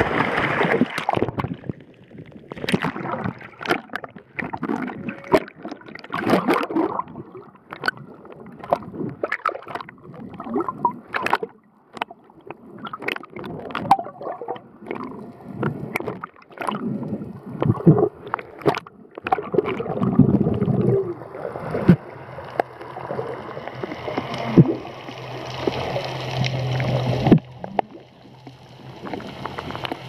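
Underwater bubbling, gurgling and splashing from a swimmer diving and finning, with humpback whale song carrying through the water. Curving, pitch-bending calls come about two-thirds of the way through, followed by a long steady low moan.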